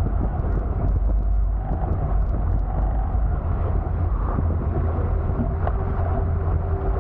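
Wind buffeting the onboard camera's microphone on a Hobie Tiger F18 catamaran under sail, a steady heavy rumble over the rush of water along the hulls.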